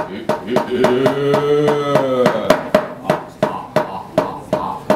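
A wayang puppeteer's wooden mallet (cempala) knocking on the wooden puppet chest in a fast, steady beat of about four knocks a second, under his sung Javanese chant; the voice stops a little over two seconds in while the knocking goes on.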